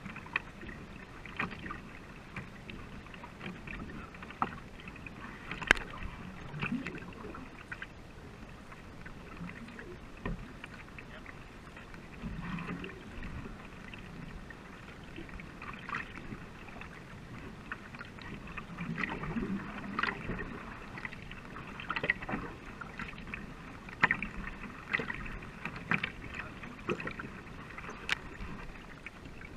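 Paddles of a two-person racing canoe dipping and pulling through river water, with a short splash at each stroke about every one to one and a half seconds, over a steady wash of water along the hull.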